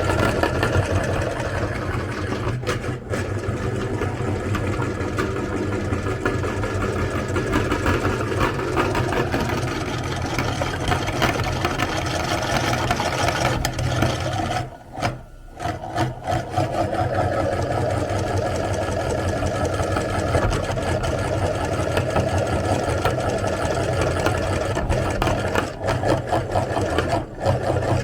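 Electric meat grinder running steadily, its motor humming under load as it grinds a bar of soap. The sound cuts out briefly about halfway through, then carries on.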